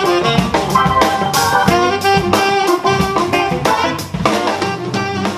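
Live jazz band playing swing/soul: a saxophone carrying the melody over a drum kit with bass drum and cymbals.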